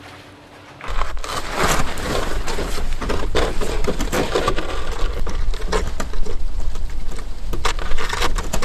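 Crunching and scraping on frozen, snow-covered ground with rustling tent fabric as a tent corner is pegged out by hand, starting about a second in with many small clicks and scrapes.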